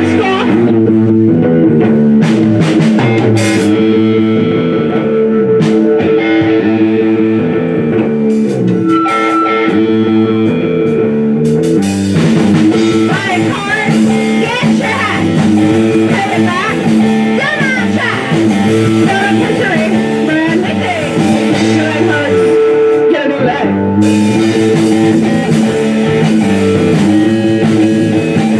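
Live rock band playing an instrumental passage: guitar over bass and drums, with bending guitar notes in the middle and cymbals coming in fully about halfway through.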